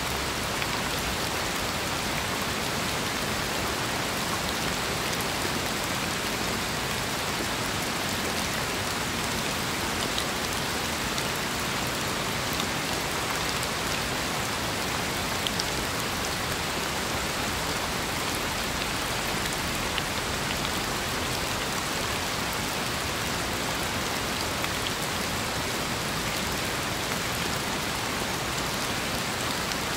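Steady rain falling: an even, dense hiss with a few louder single drops ticking now and then.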